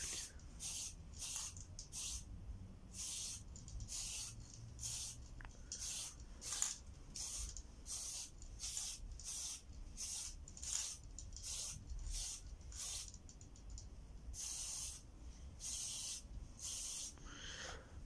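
Aerosol spray-paint can spraying in short repeated bursts of hiss, about one or two a second, with a few longer sprays near the end.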